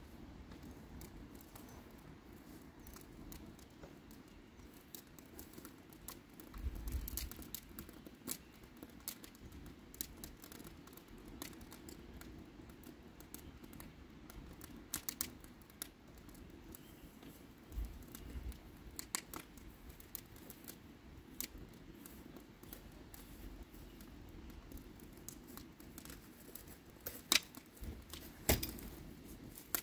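Wood fire crackling in a perforated steel drum fire pit: irregular sharp pops and snaps over a faint steady hiss, the loudest pops near the end.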